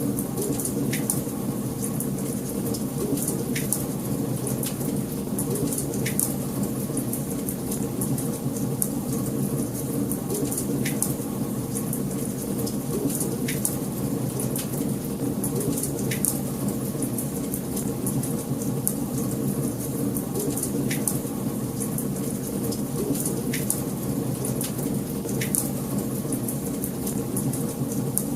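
Wood fire crackling in a fireplace: a steady low rush of burning with a dense patter of small crackles and a louder pop every second or two.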